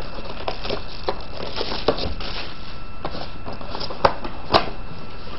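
Plastic shrink wrap crinkling as it is stripped off a cardboard trading-card box, and the box being handled and its lid opened, with a few sharp clicks.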